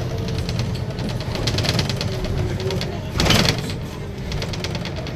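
Volvo B7RLE bus's diesel engine running with a low, steady rumble and light rattling, with a brief hiss a little over three seconds in.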